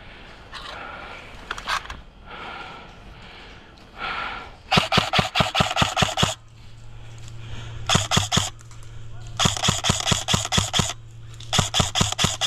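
An airsoft rifle firing four rapid full-auto bursts of clicking shots, each lasting about half a second to a second and a half, after a few seconds of heavy breathing.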